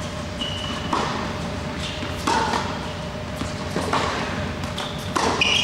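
Tennis balls struck with a racket and bouncing on an indoor hard court: four sharp knocks a second or so apart, echoing in a large hall. Tennis shoes give short squeaks on the court surface in between.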